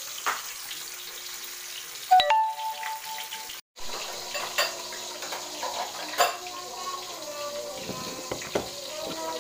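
Tilapia frying in hot oil in a wok, a steady sizzle, with a loud metallic clank that rings briefly about two seconds in. After a short break, a spoon clinks a couple of times against a plastic tub and ceramic bowl.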